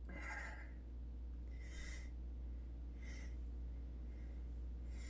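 A man's short, faint sniffing breaths through the nose, three of them about a second and a half apart, in the build-up to a sneeze. A steady low hum runs underneath.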